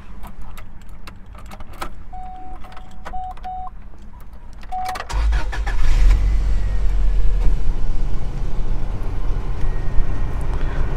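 Clicks and a few short electronic beeps in the car, then the Subaru Legacy's 2.0-litre flat-four boxer engine cranks and catches about five seconds in and settles into a steady idle.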